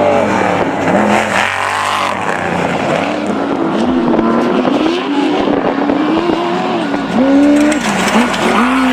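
Off-road desert race vehicle engine revving, its pitch climbing and dropping again and again as the throttle is worked.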